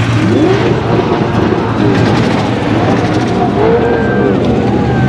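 A car engine running in a road tunnel, with pitch glides that rise and fall, heard over spectators' voices.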